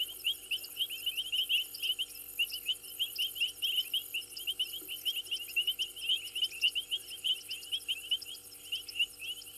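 Night chorus at a waterhole: many short, rapidly repeated chirps from numerous callers overlap, over a continuous high-pitched insect trill, with a faint steady hum underneath.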